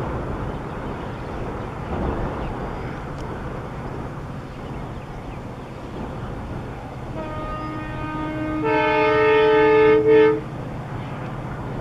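Locomotive horn sounding for about three seconds near the end, starting softly and swelling into a louder chord, with a brief break just before it cuts off, over a steady low rumble of the train running.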